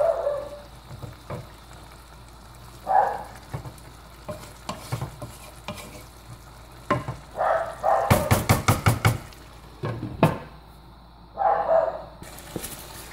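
Wooden spoon stirring and scraping chicken curry in a heavy pot as it sizzles, with a quick run of sharp taps on the pot about eight seconds in. Near the end the glass lid is set on the pot to let the curry cook covered.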